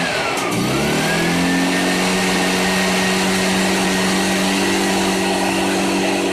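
Echo PB500 backpack blower's two-stroke engine running at speed, its carbon-clogged spark arrestor and spark plug freshly cleaned. The revs dip briefly near the start, climb back within a second or two and then hold steady: a healthy-running engine.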